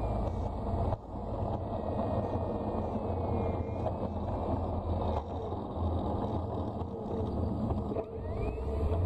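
Electric RC Westland Lysander model taxiing over tarmac, heard from a camera on the airframe: a steady rumble with a faint motor whine wavering in pitch at low throttle.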